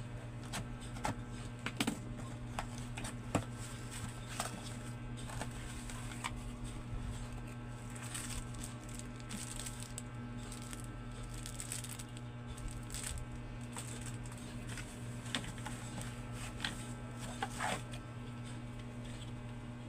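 Packaging and parts being handled and unwrapped: scattered rustling, crinkling and light clicks over a steady low hum.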